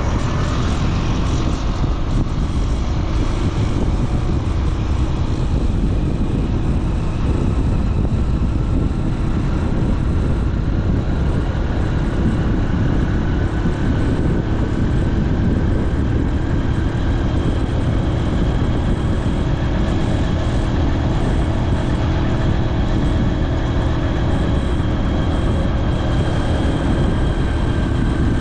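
Motorcycle running steadily with a rider aboard: a constant engine drone with a faint steady whine, under heavy wind rush on the microphone.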